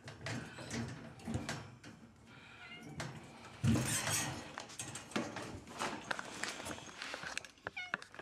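A house cat meowing, mixed with footsteps and rustling as someone moves through the room; several thin wavering cries come near the end.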